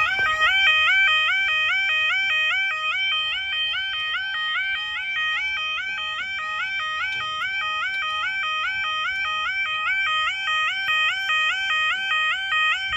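Newly fitted electronic level-crossing warning alarm sounding as the barriers lower: a two-note electronic tone stepping up and down in an even repeat, about two cycles a second, warning that a train is approaching.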